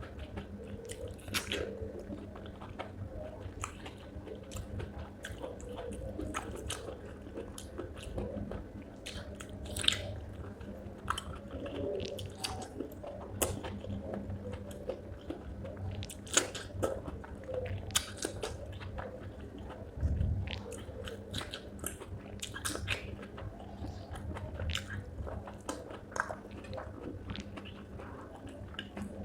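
Close-up chewing and biting on spicy chicken feet with rice, with irregular crunches and clicks throughout. A faint steady low hum runs underneath.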